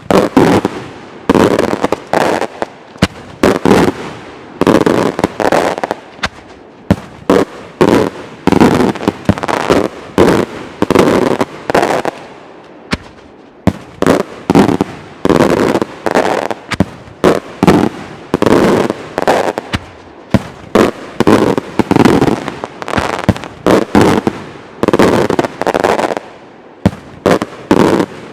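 Daytime fireworks battery of aerial multi-break salute shells, bursting in a rapid, irregular volley of loud bangs, several a second.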